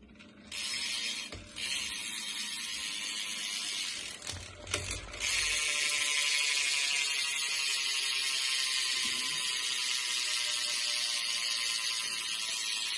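BMX rear hub freewheeling as the rear wheel is spun, its pawls clicking so fast that they make a buzz. It gets a fresh spin about four to five seconds in, then the clicking runs on and slowly drops in pitch as the wheel slows.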